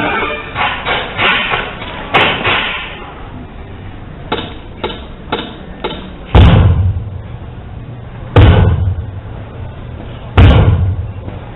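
Percussive hits in a dance routine: a run of light, sharp knocks, then three heavy booming hits about two seconds apart.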